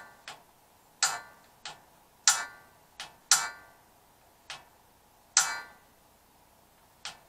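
Piezo igniter button on a gas water heater's control valve clicking repeatedly to spark the pilot: sharp snaps alternating with softer clicks, about a second apart.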